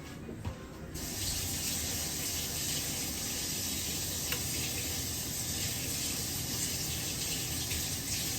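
Kitchen sink faucet turned on about a second in and running steadily, rinsing mashed potato off.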